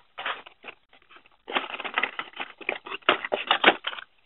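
Cardboard-and-plastic blister cards of die-cast toy cars rustling, scraping and clacking against each other and the corrugated cardboard case as a stack is pulled out. Sparse at first, then a busy run of scrapes and clicks with a few sharper knocks near the end.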